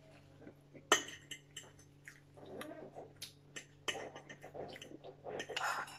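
Metal forks clinking and scraping against ceramic plates and bowls while noodles are twirled and eaten, a scatter of short clinks with a sharp one about a second in.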